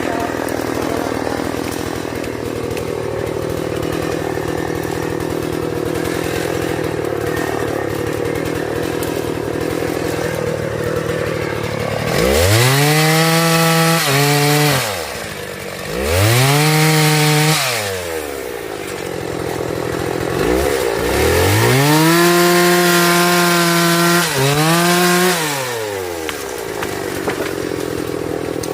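Chainsaw idling steadily for about twelve seconds, then revved up to full throttle and back down three times, the last rev held for several seconds.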